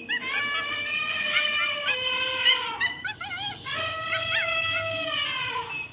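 Animal-call sound effects: a run of long, held calls, with a quick wavering series of calls about three seconds in.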